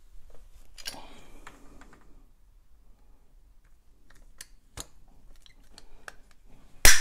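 Light clicks and rattles of a hand pipe cutter being handled at the end of a flexible multilayer water pipe, then one loud, sharp snap near the end as it cuts through.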